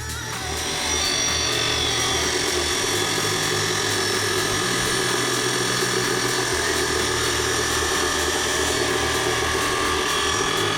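Electric power tool running steadily with a high whine, as used for cutting or grinding the scrap steel for a welded motorcycle stand. Electronic background music with a pulsing bass plays underneath.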